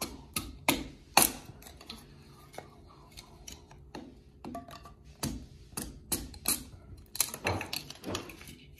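Kitchen utensils and dishware clicking and clattering, a dozen or so irregular sharp knocks.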